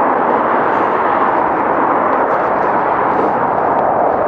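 Steady loud rushing noise of wind over a moving camera's microphone, riding at speed, mixed with traffic on the busy multi-lane road alongside.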